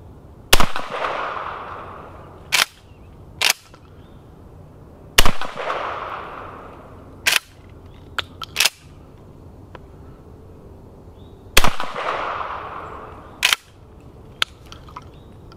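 Three shots from a Springfield 67F 20-gauge pump-action shotgun firing reduced-recoil Brenneke slugs, about five to six seconds apart, each dying away over a couple of seconds. Between shots the pump is racked back and forward with sharp clacks, ejecting the spent shell and chambering the next round.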